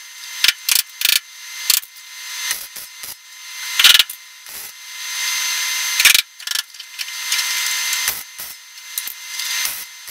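MIG welder stitch-welding a sheet-steel patch into a truck cab's lower door pillar. The arc crackles and hisses in a string of short bursts, about half a second to a second and a half each, with brief pauses between.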